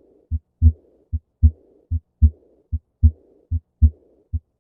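Recorded heartbeat with the early diastolic murmur of aortic regurgitation, a little over one beat a second. Each beat is a softer first heart sound and a louder second heart sound, followed at once by a short, faint murmur.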